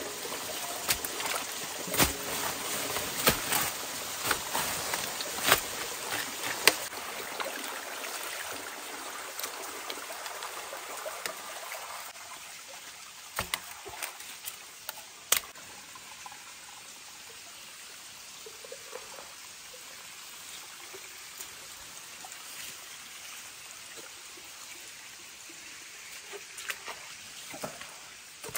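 Water trickling and flowing in a shallow muddy pool, with sharp splashes and knocks as hands scoop out sand and stones clogging the intake of a mountain water pipe. The splashing and knocking is loudest over the first several seconds, with a few more knocks later over the steady trickle.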